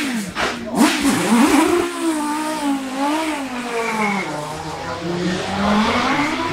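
Volvo S40 BTCC super touring car's 2-litre naturally aspirated five-cylinder engine with individual throttle bodies being revved in quick throttle blips, its pitch jumping up and down, then running with a pitch that rises and falls more slowly.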